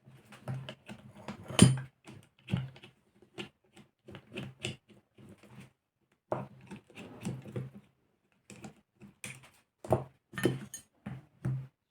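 Irregular clicks, taps and knocks of small metal engine parts and tools being handled and set down on a table while a model aircraft engine is taken apart, the loudest knock about one and a half seconds in.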